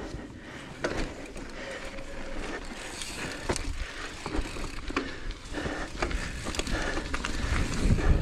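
Mountain bike ridden fast down a dirt trail: tyres running over dirt and the bike rattling, with sharp knocks over bumps and a heavier jolt near the end. A low rumble of wind runs under it on the camera's microphone.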